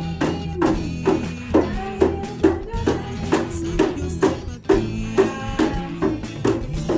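A Christmas carol accompanied by a plastic water gallon jug beaten as a drum, keeping a steady beat of about two to three strikes a second.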